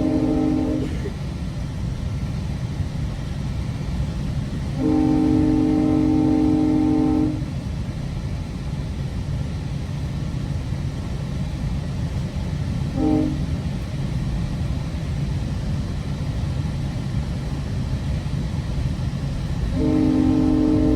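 Train horn chord sounding through the running rumble of a moving GO Transit commuter train, heard from on board. A long blast ends about a second in, then comes another long blast, a short one and a final long one: the long-long-short-long grade-crossing signal.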